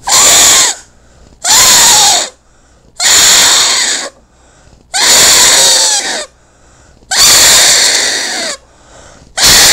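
Stretched strip of latex glove pinched between the thumbs and blown across like a grass-blade whistle: the latex vibrates in the narrow gap and gives a loud, harsh squeal. It sounds in about six blasts of roughly a second each, with short breaths between, the pitch bending within each blast.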